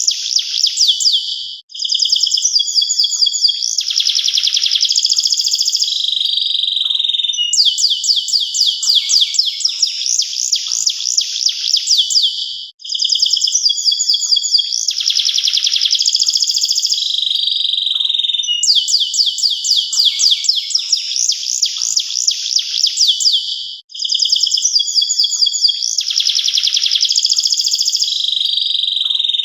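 Local domestic canary singing a long, loud song of rapid trills and rolled phrases, with a brief pause about every eleven seconds.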